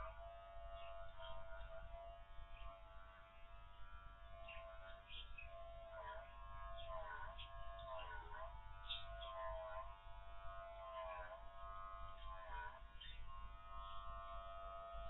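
Electric dog-grooming clippers running with a steady hum. Several times it briefly sags in pitch as the blade works through the dog's thick coat.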